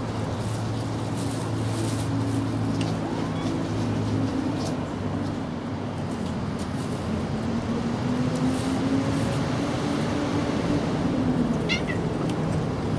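Mother cat growling at her kittens: long, low, drawn-out growls lasting several seconds each, warning off a kitten that has bitten her tail.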